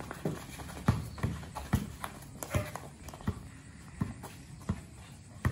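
A basketball being dribbled on a court: a string of sharp, irregular thumps, roughly two a second.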